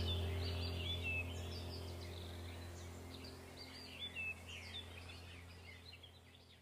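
Calm background music of held low drone tones with birdsong chirping over it, fading out steadily to silence at the end.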